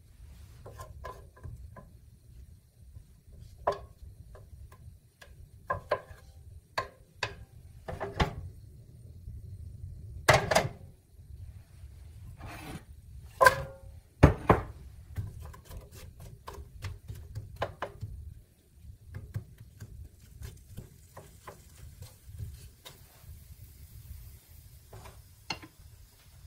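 Green apple slices being dropped into a ceramic-coated frying pan: a run of irregular light taps and knocks, a few louder ones roughly ten to fourteen seconds in, over a low steady hum. A faint hiss comes in near the end.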